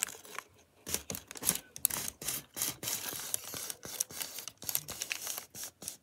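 Paper rustling and crinkling in irregular short bursts as the long printed paper backing strip from a Fruit Winders snack is unrolled and handled.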